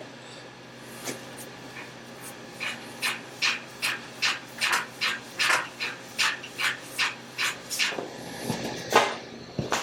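Hand sanding with short back-and-forth strokes, about two or three a second, starting a few seconds in. The strokes stop briefly near the end, then a few louder ones follow.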